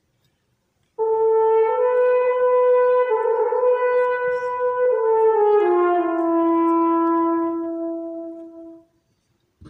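Solo French horn playing a slow phrase of long held notes, coming in about a second in. It steps up, holds, then steps down to a low note held for about three seconds that fades away near the end.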